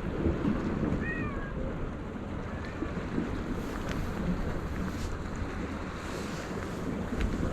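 A cat gives a few short meows, about a second in and again near three seconds, over steady wind on the microphone and the wash of the sea.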